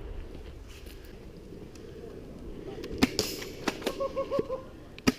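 Airsoft guns firing: a single sharp shot about three seconds in, a quick string of lighter shots just after, and another sharp shot near the end.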